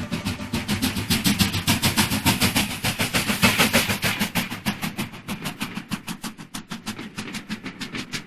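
Stanier Black Five two-cylinder 4-6-0 steam locomotive passing close at speed, its exhaust beating fast and evenly. The beats are loudest about three and a half seconds in as it runs past, then ease off as the train follows.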